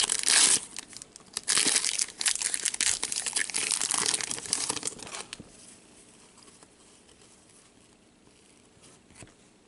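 Wrapper of an Upper Deck Series 2 hockey card pack crinkling and tearing as it is ripped open by hand, a run of sharp rustles that stops about five seconds in.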